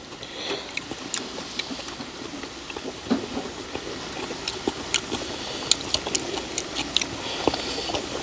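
Scattered light clicks and clinks of chopsticks, tongs and clam shells being handled at a table grill during a meal, coming more often in the second half.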